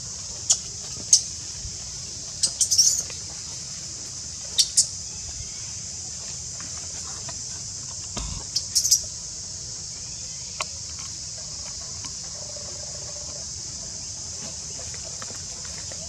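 Baby monkey giving short, sharp high-pitched squeaks in scattered runs, most in the first nine seconds, over a steady high hiss.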